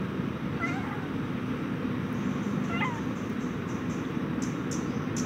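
A hungry cat meowing twice, short high calls about two seconds apart, over a steady low background rumble.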